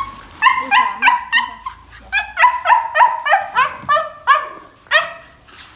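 Sick puppy yelping over and over in short, high cries, about three or four a second, with a brief pause about two seconds in and the last cry about five seconds in.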